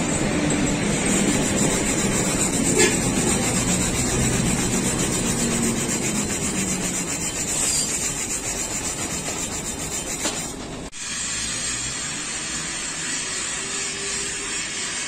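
Hand wire brush scrubbing rapidly back and forth over a 7018 stick-weld bead on a steel plate, cleaning the weld. About eleven seconds in it cuts off abruptly to a steadier, quieter hiss.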